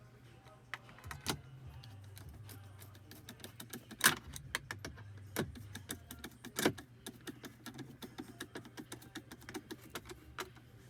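Magnetic screwdriver and small screw clicking and tapping against plastic console trim as the screw is fitted and driven into a hidden spot: a run of small irregular clicks with a few sharper knocks, over a low steady hum.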